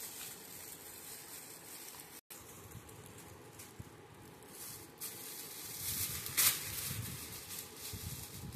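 Crinkling and rustling of metallic gold gift wrap as it is pulled open and handled, with a louder crackle about six and a half seconds in.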